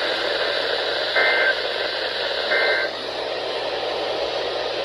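Off-air radio static hissing steadily, cut by two short bursts of Emergency Alert System data tones about 1.3 seconds apart. Bursts this short are typical of the end-of-message code that closes an alert.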